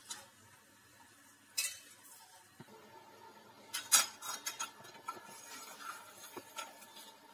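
Steel ladle clinking and scraping against a stainless steel kadai while stirring a hot amchur and jaggery mixture until the jaggery melts. The sharpest clinks come about one and a half and four seconds in.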